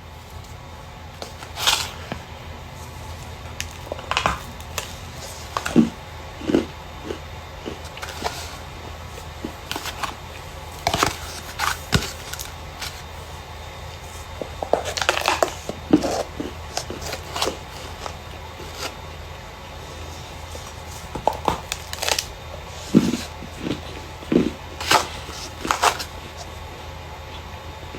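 Dry starch being crushed and crumbled, in irregular sharp crunches and crackles, some single and some in quick clusters, over a steady low hum.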